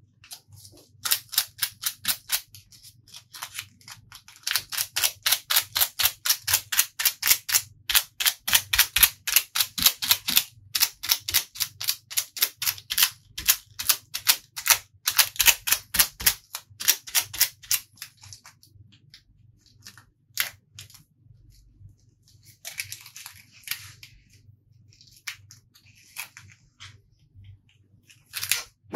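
Rapid sharp taps on a hard surface, about three to four a second, for the first two-thirds or so. They then thin out into scattered taps and a few brief scrapes.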